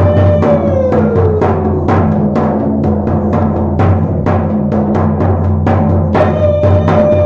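Rhythmic drumming music: steady deep drum beats about three a second over a held droning tone that glides down about a second in and comes back near the end.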